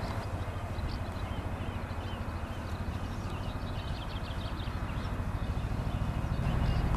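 A low rumbling noise made of rapid pulses, growing louder near the end, with many small birds chirping high in the background.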